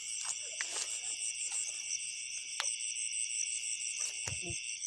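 Night insects, crickets among them, trilling without a break in several high-pitched bands, the highest a fast pulsing buzz. A few faint clicks and a short low sound come through near the end.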